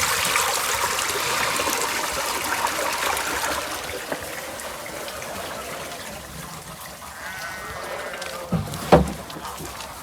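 Water trickling and splashing, fading away over the first few seconds, then a sheep bleating loudly once near the end.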